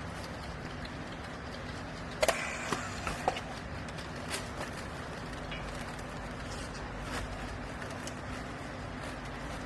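A machine's steady low hum, with a few sharp knocks and clacks about two to three seconds in.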